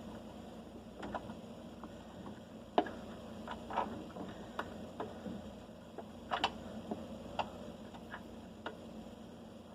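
Irregular light clicks and taps of hand tools and metal parts as a washing machine is being taken apart, over a faint steady hum.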